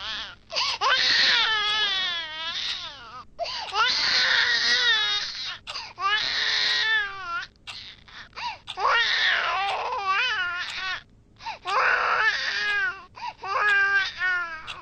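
A baby crying in a run of wavering wails, each lasting one to two seconds, with short breaks between them.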